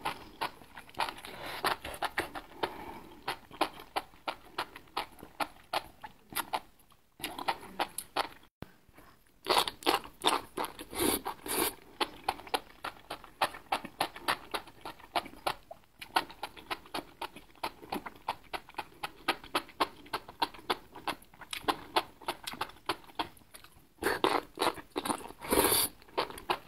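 Close-up mouth sounds of someone eating enoki mushrooms in spicy broth: rapid wet clicks and smacks of chewing, several a second, with louder bursts where strands are slurped in.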